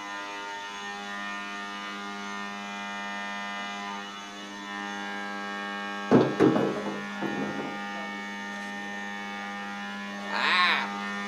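A steady electrical hum with many overtones. About six seconds in, a loud metallic clunk and clatter as a billet aluminum cylinder head is set down on a floor scale's platform. Near the end comes a brief high-pitched whine.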